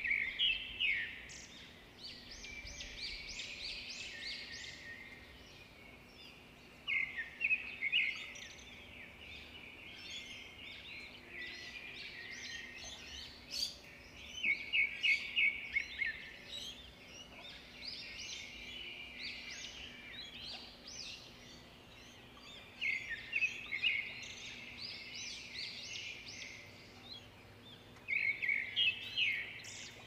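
Australian magpies calling: loud bursts of quick, repeated notes about every seven seconds, with softer calling in between.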